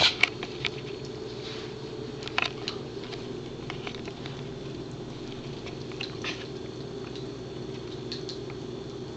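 Pembroke Welsh Corgi gnawing a hard cheese chew (Himalayan Dog Chew), with teeth clicking and scraping on the hard stick now and then. The sharpest clicks come right at the start and again about two and a half seconds in, over a steady low hum.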